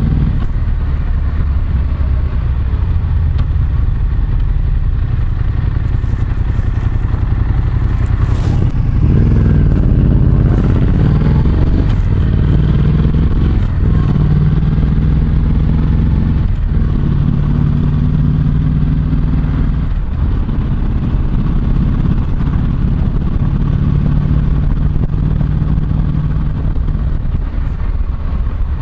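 Yamaha MT-07 parallel-twin running through an SP Tadao Power Box full exhaust under way at town speeds, picked up close by a microphone in the rider's back pocket. The note rises about a third of the way in and drops briefly several times as the throttle is opened and eased. A faint rustle from the coated jeans fabric rubbing over the microphone.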